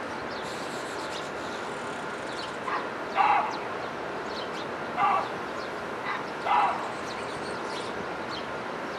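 Small birds chirping faintly over a steady hiss, broken by five short, loud animal calls: a pair about three seconds in, one at five seconds, and a pair between six and seven seconds.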